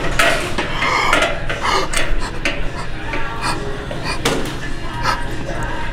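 Detecto mechanical balance-beam scale being adjusted by hand: its metal poise weights slid and set along the beam, giving an irregular string of sharp metal clicks and knocks.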